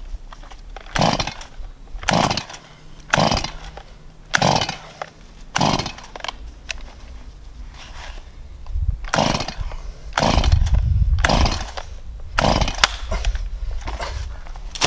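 Recoil starter of a Stihl MS 170 two-stroke chainsaw being pulled about ten times, roughly once a second with a short pause midway, each pull a quick rasp of the rope as the engine turns over without starting, its stop switch left off.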